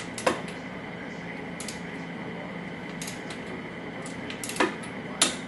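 Several sharp metallic clinks of parts and tools being handled against a motorcycle's aluminium cylinder head, over a steady background hum.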